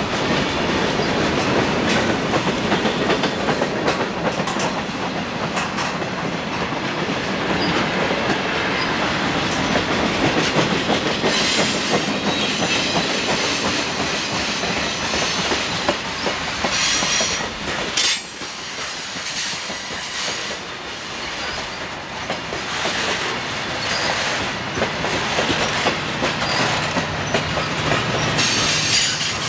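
Freight cars rolling past close by: a steady rumble of steel wheels on rail, full of rapid clicking and clatter, with high-pitched wheel squeal coming and going as the cars take the curve.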